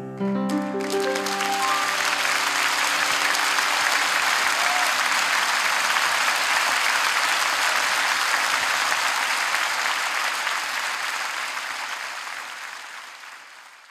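The band's closing chord rings out briefly as a large concert-hall audience breaks into applause. The applause holds steady, then dies away over the last few seconds.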